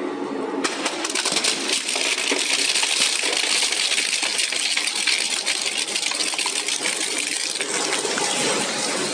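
Industrial twin-shaft shredder chewing up a sheet-metal desktop computer case: a dense, continuous metallic crunching and clattering that starts suddenly about half a second in.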